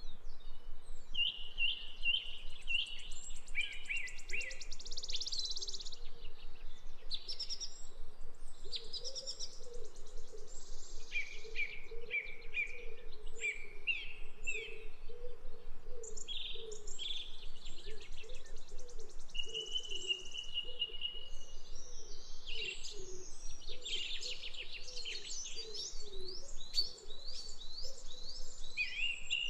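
Several birds singing and calling together: high trills, runs of repeated chirps and a short held whistle, overlapping one another. A lower, softer call repeats steadily underneath.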